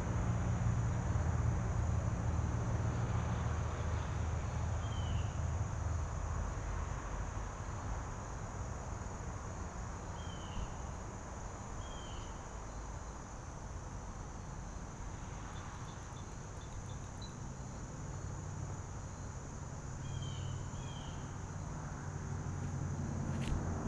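A steady, high-pitched chorus of insects chirping, with a few short bird chirps scattered through it. A low hum sits underneath; it fades after the first few seconds and grows again near the end.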